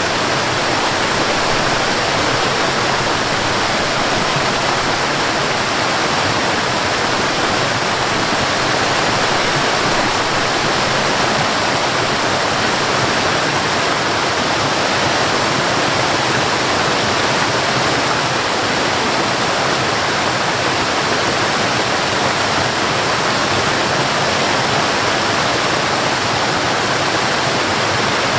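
Waterfall, water falling and splashing in a steady, unbroken rush.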